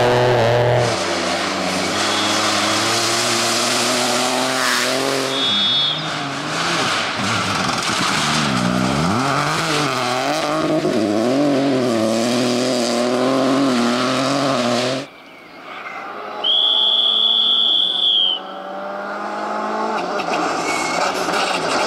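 Rally car engines on a gravel stage, revving hard with the engine note swinging up and down through gear changes. After a sudden cut, a single long, high whistle blast lasts about two seconds. Another rally car's engine then rises as it approaches.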